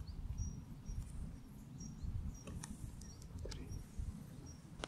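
Outdoor field ambience: an uneven low rumble, with faint short high chirps now and then and a couple of soft clicks.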